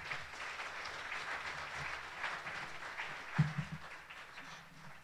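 Audience applauding, a dense patter of clapping that thins out toward the end. A single low thump sounds about three and a half seconds in.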